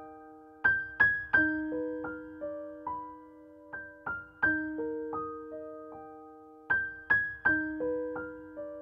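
Gentle background piano music: a short melody of single struck notes that ring and fade, the same phrase coming round about every three seconds.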